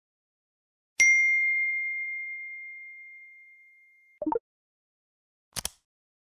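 Device alert sound effects: a single bright ding about a second in that rings and fades away over about three seconds, a short soft blip about three seconds later, and a sharp click near the end, matching a tablet lock screen receiving a message notification and then unlocking.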